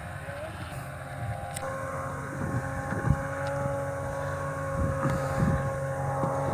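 Snowmobile engine running at a steady pitch as it draws closer, growing slowly louder, with wind rumbling on the microphone.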